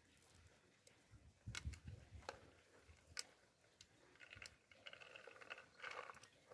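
Near silence with faint scattered clicks and soft knocks, and a faint high pitched sound late on.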